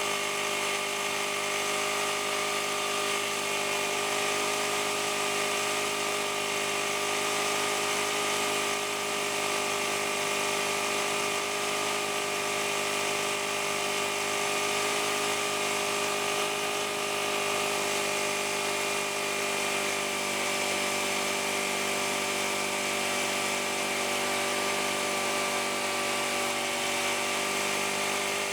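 AIRMAN EP2300 portable gasoline generator running steadily at constant speed, with a steady hum and whine.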